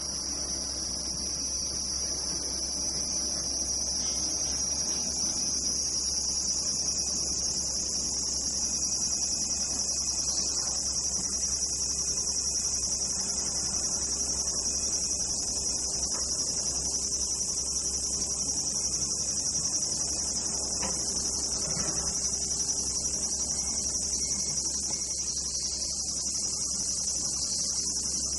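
Steady high-pitched chorus of singing insects, with a low steady hum underneath.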